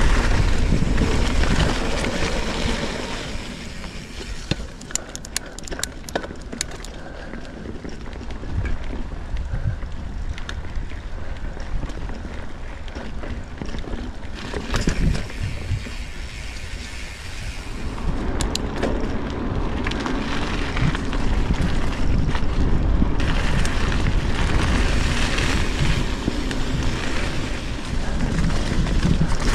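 Trek Fuel EX 7 full-suspension mountain bike riding a dirt and sand trail: tyres rolling, with the bike rattling and a few sharp clicks, and wind buffeting the action-camera microphone. It is louder at the start, eases for a stretch in the middle, and picks up again over the last third.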